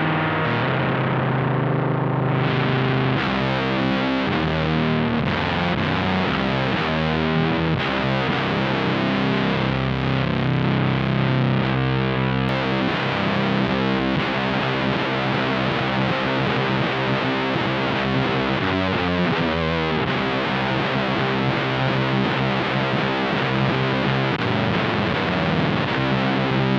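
Electric guitar through a one-knob fuzz pedal and a 1969 Laney Supergroup valve amp, playing a slow, heavy doom-metal riff with thick, saturated sustained low notes.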